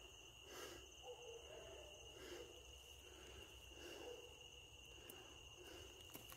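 Faint night insects: a steady high-pitched trill, with soft, irregular rustles in brush underneath.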